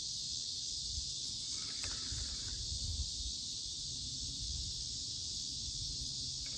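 Steady high-pitched hiss of an insect chorus, with a faint uneven low rumble underneath.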